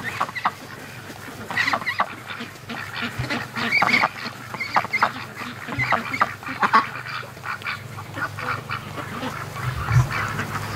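A flock of white Pekin ducks quacking in many short, overlapping calls.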